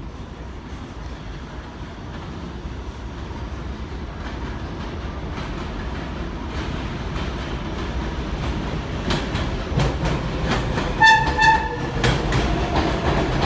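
R142A subway train approaching: the rumble of wheels on rail grows steadily louder, with clicking wheel clacks from about halfway in. Two short horn blasts sound about eleven seconds in, and a steady whine sets in near the end.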